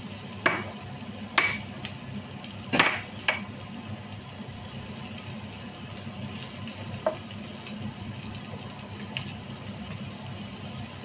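Spatula stirring diced onion in a frying pan, knocking sharply against the pan four times in the first few seconds and once more later, over a steady low background.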